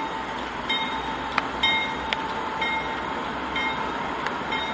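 CSX GE diesel locomotive rumbling past at the head of a hopper train, with a bell ringing about once a second and a steady high tone over it.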